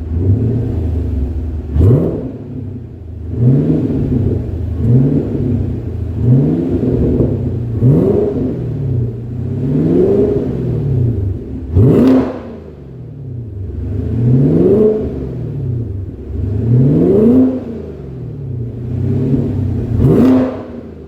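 Chevrolet Camaro V8 revved again and again through a custom stainless steel exhaust with twin mufflers and 100 mm tips. There are about ten blips, each rising in pitch and falling back; four of them, about two, eight, twelve and twenty seconds in, are quicker and sharper than the rest.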